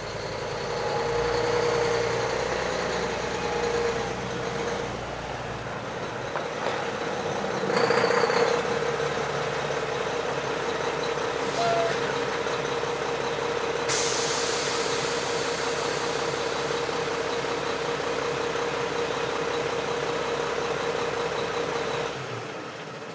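An engine running steadily, with a short loud hiss about eight seconds in and a brighter, hissier noise from about fourteen seconds; it fades out near the end.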